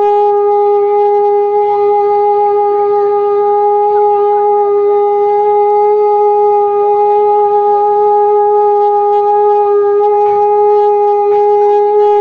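Conch shell (shankh) blown in one long unbroken note, held steady at a single pitch with strong overtones.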